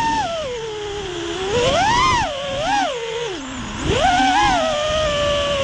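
6S FPV quadcopter's motors and Ethix Watermelon propellers whining, the pitch swinging with the throttle. It falls off after the start, rises in two quick punches about two seconds in, drops deep near the middle, then climbs back and settles to a steady cruise. Wind noise on the onboard camera's microphone lies underneath.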